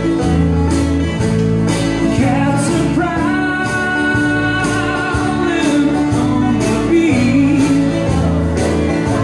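Dance music with a singing voice over a steady beat, about two beats a second.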